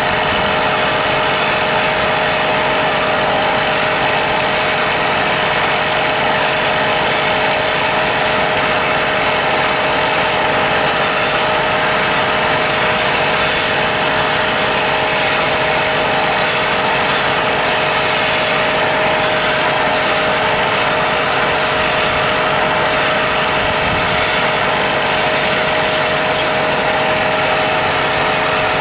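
A machine running steadily and unchanging: a loud, even hiss with a constant tone in it.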